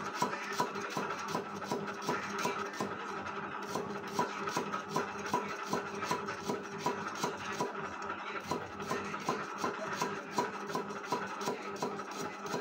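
Cleaver chopping lemongrass stalks on a thick round wooden chopping block: a steady run of quick knocks, about three to four a second.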